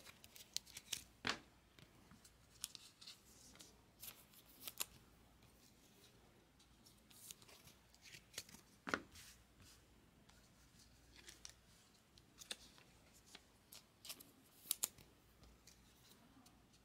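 Faint, irregular rustles and small plastic clicks of trading cards being slid into clear plastic sleeves and handled, with a few sharper clicks spread through.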